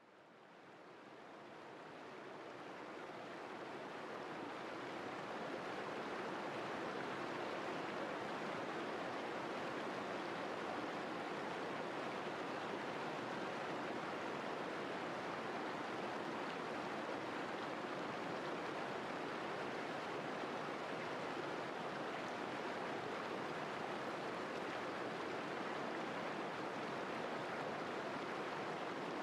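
Shallow stream rushing and splashing over moss-covered rocks in small rapids: a steady, even water noise that fades in over the first few seconds.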